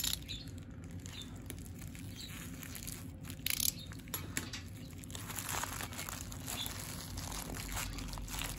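Plastic padded bubble mailer crinkling and rustling as it is handled and slit open with a utility knife, with a louder crackle about three and a half seconds in.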